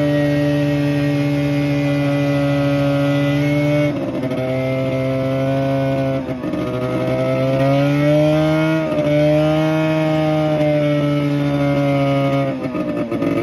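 1977 Arctic Cat Jag 2000 snowmobile's two-stroke engine running under way. Its pitch drops about four seconds in, climbs again a few seconds later, then falls away near the end, where it turns choppy and uneven.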